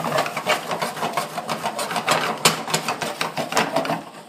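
Frying pan shaken back and forth on a gas stove's metal burner grate: rapid, irregular scraping and rattling. It stops about four seconds in.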